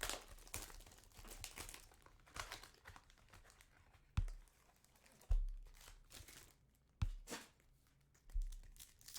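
Trading card pack wrappers being torn open and crinkled by hand, in a run of short rustles, with a few dull thumps of handling on the table.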